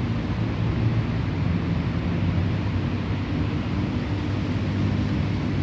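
Steady low rumble of a running engine over an even hiss of outdoor noise.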